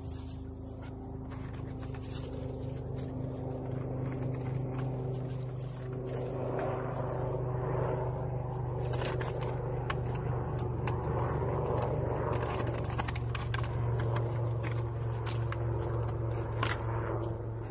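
A steady low engine-like hum with a couple of constant tones above it, under rustling and scraping of puppies pawing and nosing through dry leaves and grass, which grows busier from about six seconds in, with scattered light clicks.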